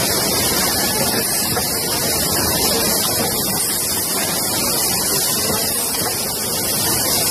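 Rotary yogurt cup filling and sealing machine running: a steady, loud hiss of air and machine noise.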